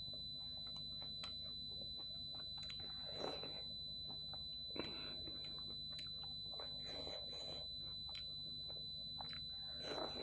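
Close-up eating sounds: fingers working dhido and chicken curry and wet chewing, heard as a handful of short squelches. Under them runs a steady high-pitched electronic whine with a low hum.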